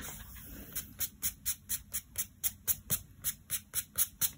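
Eraser rubbed quickly back and forth on watercolour paper, rubbing out a pencil line: a rhythmic scratchy scrubbing of about four or five strokes a second, starting just under a second in.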